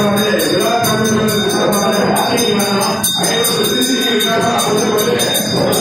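Music: singing over a steady jingling beat.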